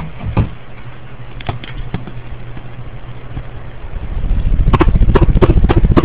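Harbor Breeze Armitage ceiling fan running: a steady low motor hum, then from about four seconds in a loud, fast-pulsing low rumble of moving air buffeting the microphone, with sharp ticks about four times a second.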